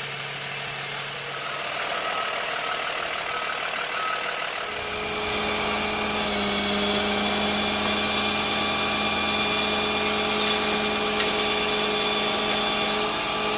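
Steady machine drone from a running motor, growing louder about five seconds in as a second, higher steady hum joins it.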